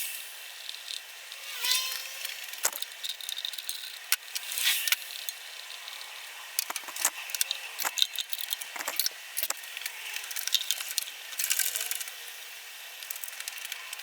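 Metal hand tools and parts being handled in scattered sharp clicks, clinks and knocks with short scrapes, irregular throughout, with no engine running.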